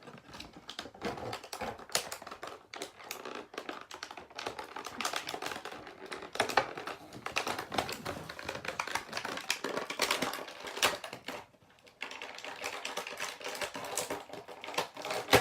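Small hard-plastic action-figure parts and accessories clicking and clattering as they are handled, a dense run of rapid clicks with a short pause about three-quarters of the way through.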